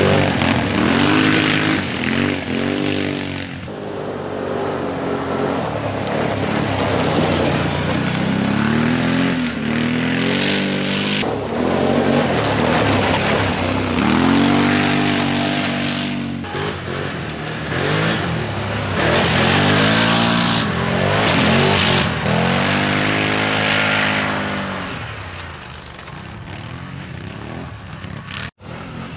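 ATV engines revving hard in about five surges, each climbing and falling in pitch, as quad bikes pull away over rough ground. The engines are quieter near the end.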